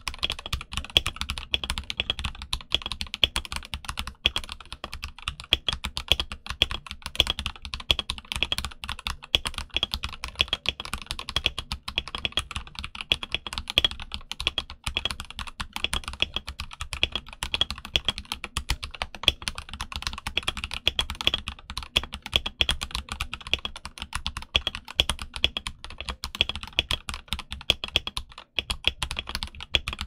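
Continuous fast typing on a stock Royal Kludge RK61 mechanical keyboard with RK Red linear switches and OEM-profile double-shot ABS keycaps: a dense, unbroken stream of key strikes.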